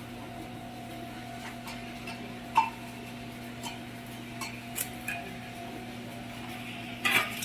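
Steady electrical hum of an arc welding machine with scattered light metallic ticks. There is a sharper clink about two and a half seconds in and a cluster of metal clinks near the end.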